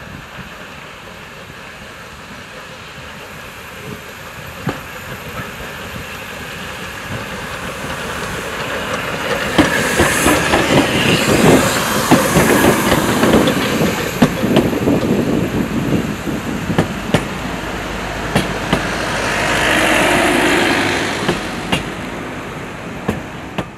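NGG16 Garratt steam locomotive No. 87 running past close by, followed by its coaches rolling through with wheels clicking over the rail joints. The sound builds to its loudest as the engine passes about ten seconds in, and there is a hiss near the end.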